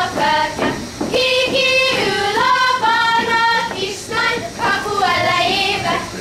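Girls' voices singing a Hungarian folk song together as they dance in a circle.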